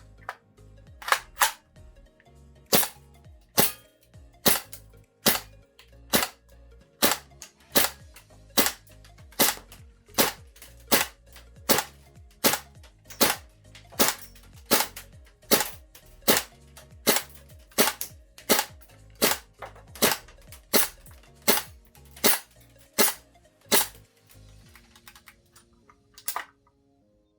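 GHK AKMSU gas blowback airsoft rifle being test fired in single shots, about thirty sharp cracks at a steady pace of a little more than one a second.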